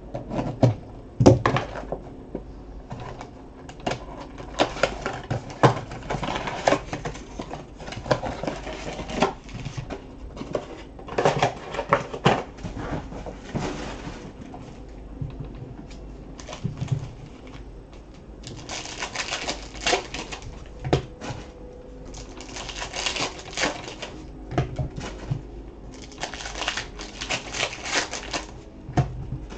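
2019-20 Panini Prizm retail box and its card packs being handled and opened: cardboard and pack wrappers rustling and crinkling in irregular bursts, with sharp clicks as the box and cards are handled.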